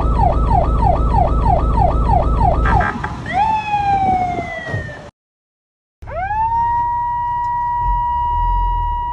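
Fire truck siren on its fast yelp, sweeping up and down about three times a second, then switching to a single tone that sags slowly in pitch before cutting out. After about a second's break the siren climbs quickly to a high tone and holds it steady, over a low rumble.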